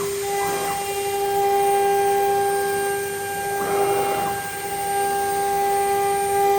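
3.5 kW CNC router spindle running with a steady high whine, and a brief burst of louder noise about four seconds in.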